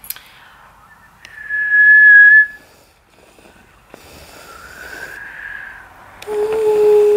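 A woman whistling through pursed lips: a long, steady high note, then a softer, breathier note in the middle, then a long low note near the end.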